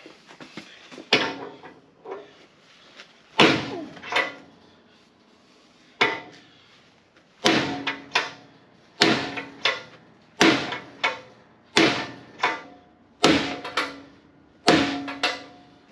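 Heavy hammer blows on steel, about ten of them, roughly one every second and a half, each ringing briefly with a lighter rebound tap: a chilled bushing being driven into its bore.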